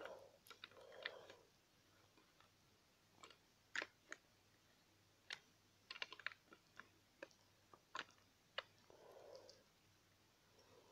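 Faint, scattered plastic clicks and taps from a small fold-out toy playset's parts being handled and pressed together as it is folded shut.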